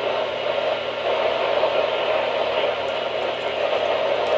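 Weather radio receiver giving a steady hiss of static with no voice on the channel, and a few faint ticks near the end.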